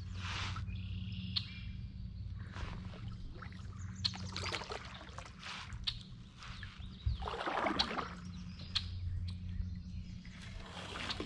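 Kayak paddle strokes swishing through the water every few seconds, with birds chirping in the background over a steady low hum.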